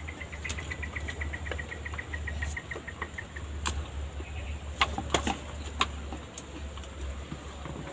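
Outdoor field ambience: a quick, even trill of short high chirps for about three and a half seconds, then a few sharp clicks, over a steady low rumble.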